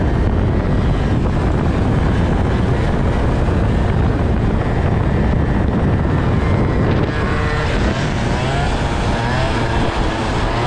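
Wind rushing over a moving camera microphone, mixed with moped engines running at speed. In the last few seconds an engine revs up and down, its pitch rising and falling.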